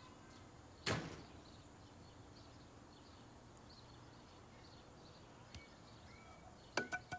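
Quiet outdoor ambience with faint chirps; a single sharp knock about a second in, and a quick run of three or four sharp clicks with a short ring near the end.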